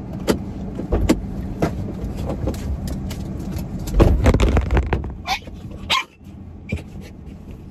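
Car interior handling noises as someone gets out of the driver's seat: door clicks, knocks and rustling, with a heavy thump about four seconds in, over a steady low hum. The sound turns much quieter about six seconds in.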